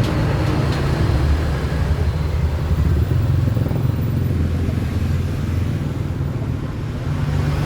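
Steady low rumble of motor-vehicle traffic, with the engine noise sitting mostly in the low range.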